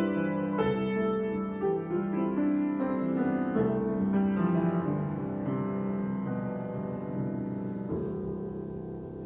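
Solo piano improvising: struck notes and chords left to ring and overlap, growing gradually softer, with a fresh low note struck near the end.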